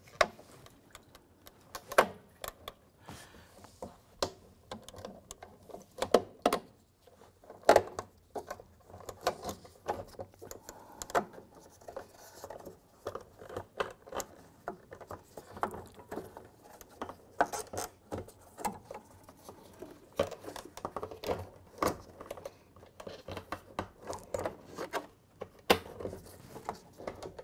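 A plastic fuel pump module knocking, clicking and scraping against the fuel tank opening as it is worked down into the tank by hand, in irregular taps with a few louder knocks.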